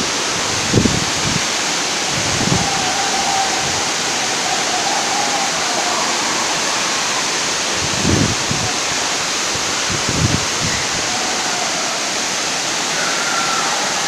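Steady rushing roar of a waterfall pouring onto rocks, with a few brief low thumps about a second in and twice more later on.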